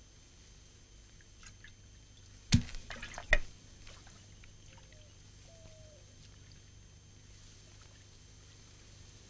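Two sharp knocks a little under a second apart, with a quick patter of smaller clicks between them, over a quiet steady background.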